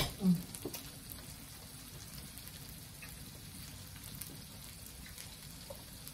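Pork and beef sizzling on a hot tabletop teppanyaki grill plate: a faint steady hiss with an occasional small crackle. One sharp click comes right at the start.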